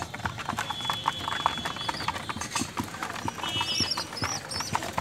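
A flock of pigeons pecking grain off a hard floor: a dense, irregular patter of quick beak taps.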